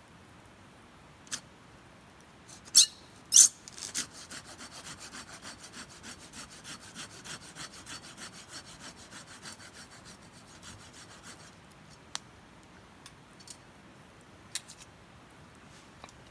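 Wood fire of damp firewood crackling: a few sharp pops, two loud ones about three seconds in, then a run of rasping pulses about three a second that fades out near eleven seconds, followed by scattered single pops.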